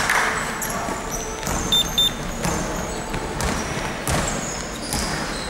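Basketballs bouncing on an indoor court, irregular knocks with the hall's echo, and two short high squeaks close together about two seconds in, like sneakers on the floor.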